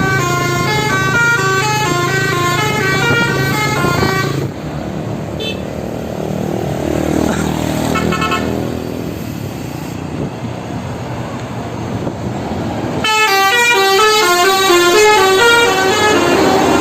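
Bus 'telolet' multi-note musical air horn playing a rapid, repeating melody of stepping notes. It stops about four and a half seconds in, leaving quieter traffic noise, then plays again near the end.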